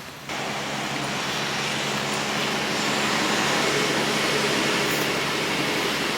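A steady, loud rushing noise with a faint low hum underneath, cutting in suddenly about a third of a second in.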